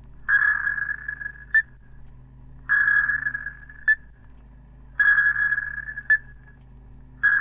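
Submarine sonar sound effect: a steady tone of about a second followed by a short sharp ping, repeating roughly every two and a half seconds, three times and starting a fourth near the end. A low steady hum runs underneath.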